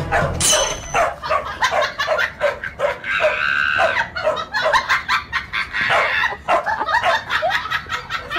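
Dog barking in a rapid run of short, high yaps, about three to four a second, with a higher drawn-out whine for about a second around three seconds in.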